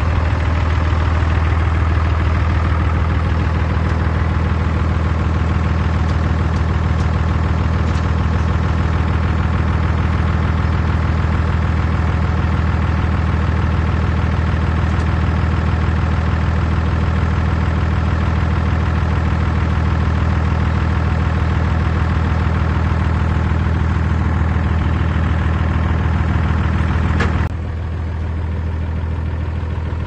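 A bulldozer's heavy diesel engine running steadily with a deep low hum. Near the end, after a short sharp tick, it drops suddenly to a lower level.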